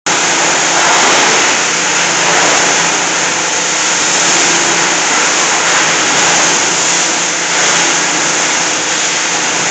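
Industrial plastic crusher running loud and steady while TV housing shells are fed to it and crushed, a dense unbroken noise with a faint low hum beneath it.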